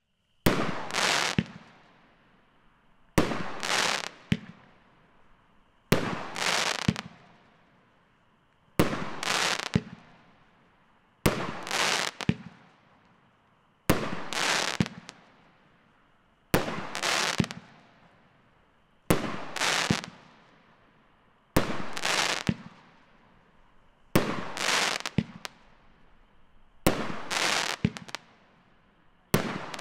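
Riddle Me This 16-shot consumer firework cake firing shot after shot, about one every two and a half seconds, twelve in all. Each shot is a sharp crack followed by about a second of noisy bursting that dies away.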